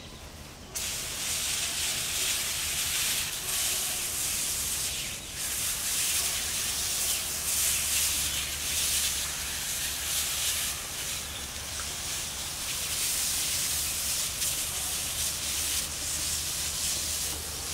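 Backpack sprayer's wand nozzle hissing as it mists liquid onto apple trees. The spray starts suddenly about a second in and runs on steadily, rising and falling a little as the wand is moved.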